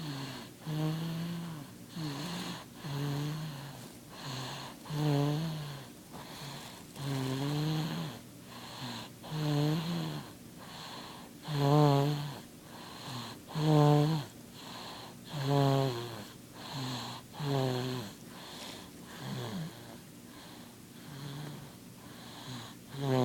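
A baby snoring in her sleep: a low snore on each breath, about one every two seconds, each carrying a high note that slides up and down. The breaths grow softer over the last few seconds.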